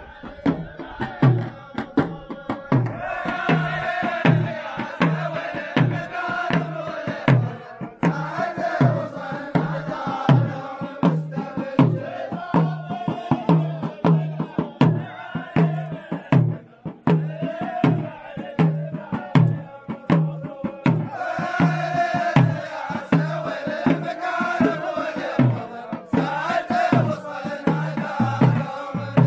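Omani razha: a group of men chanting in unison over a steady beat of hand drums, about one and a half strokes a second.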